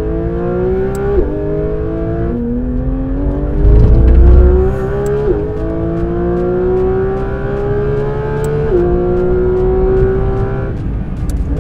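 Porsche GT3 RS's naturally aspirated flat-six accelerating at full throttle, its pitch climbing steadily through the gears with quick upshifts about one, five and nine seconds in. A loud low rumble comes about four seconds in, and the engine note drops away near the end as the throttle is lifted.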